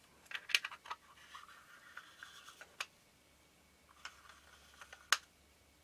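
Small metal lens parts being handled and seated with gloved fingers: the front lens group of a Minolta Rokkor-PF lens going into its barrel. There are soft scraping and rubbing noises and several light clicks, the sharpest about five seconds in.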